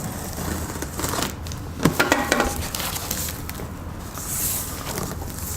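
Cardboard box and packing material being handled and pulled open: irregular rustling and scraping, with a louder crackle about two seconds in.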